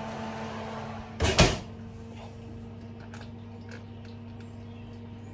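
Rangemaster range cooker's oven door pushed shut, with two quick thumps a little over a second in. A steady low hum runs underneath.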